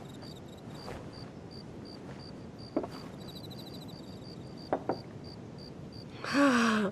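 Crickets chirping steadily, a regular high chirp two or three times a second, with a few light knocks around the middle. Near the end a woman gives a short laugh.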